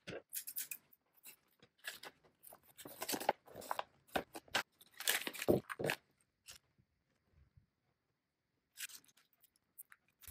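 Sealed clear plastic bag being torn open and handled, crinkling and rustling in irregular bursts for about six seconds, then a few faint light clicks near the end.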